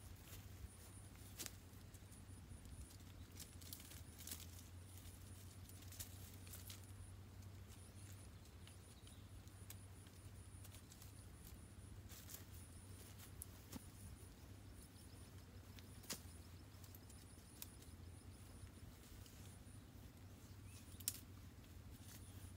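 Light snaps, clicks and leafy rustles of thin green branches being bent and woven into a shelter frame, scattered irregularly, with one sharper snap near the end. Faint high chirping in short pulses runs in the background.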